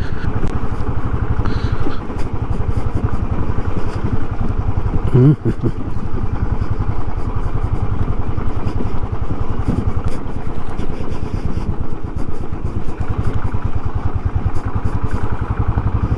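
Motorcycle engine running steadily under way, ridden over a rough, broken off-road track.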